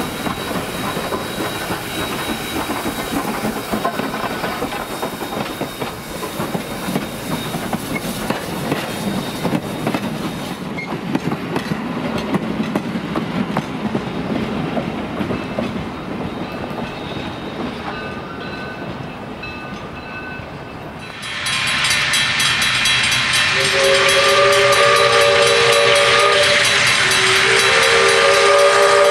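Passenger cars of a steam train rolling past, with a steady rumble and wheels clicking over the rail joints. About twenty seconds in this gives way to a level-crossing warning bell ringing rapidly, and soon after the steam locomotive's chime whistle sounds two long blasts for the crossing.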